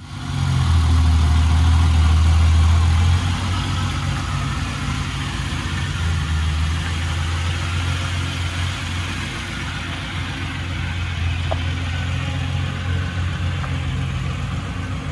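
Ferrari 330 GT 2+2's V12 engine, freshly tuned with its throttle cable adjusted, running louder for the first three seconds and then settling to a steady idle.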